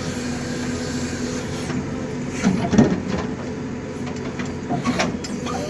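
Engine of a JCB earth-moving machine running at a steady pitch, with a few short knocks about two and a half seconds in and again near five seconds.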